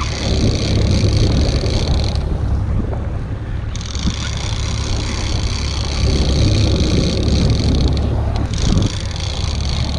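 Wind buffeting the microphone on a small boat at sea, a steady low rumble. Over it, a high whirring starts and stops, running in three stretches with two short breaks.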